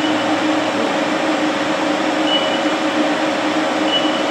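Steady mechanical hum of a machine shop, with short high beeps from the Haas CNC control's keypad as keys are pressed, once about halfway through and again near the end.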